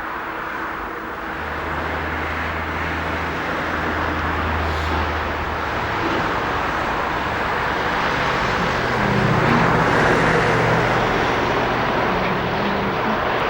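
Diesel train engine running with a low, steady throb and a broad rush of noise that grows louder, peaking about two-thirds of the way through as the train draws close.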